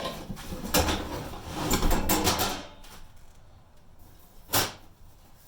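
Knocks, rattling and scraping as a motorhome furnace is worked loose and pulled from its compartment, with a busy stretch of handling during the first three seconds and one sharp knock near the end.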